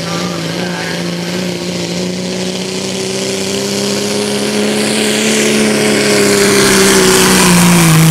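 Diesel engine of a Dodge Ram pickup running hard under full load as the truck pulls a weight-transfer sled. The engine note holds steady and grows louder, then sags slightly in pitch near the end as the load builds.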